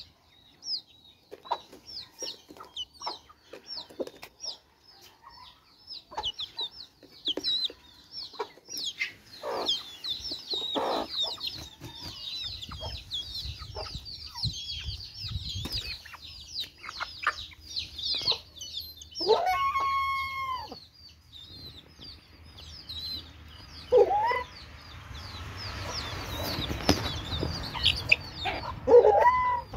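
Domestic chickens: chicks peeping high and almost without a break, and hens giving short clucks. About twenty seconds in, a louder drawn-out call rises and holds briefly, and shorter ones follow near the end.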